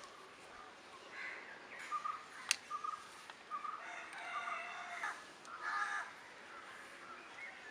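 A crow cawing, several short harsh caws in separate bouts, with a sharp click or two between them.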